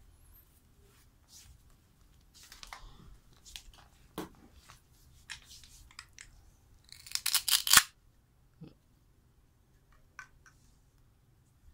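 Plastic toy food pieces and their clear plastic bag being handled: light clicks and crinkling rustles in scattered bursts, with a louder crackling burst about seven seconds in.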